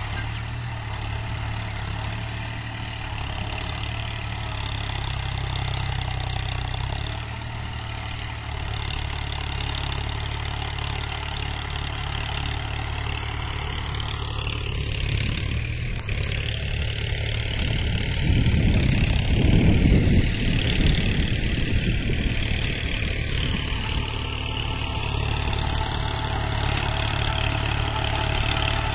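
New Holland tractor's diesel engine running steadily under load while it drives a PTO rotavator through the soil. It swells louder for a couple of seconds about two-thirds of the way through.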